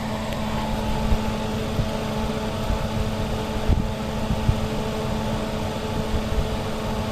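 Air-conditioning compressor and fan running steadily, a constant hum with a fixed low tone over a rushing fan noise.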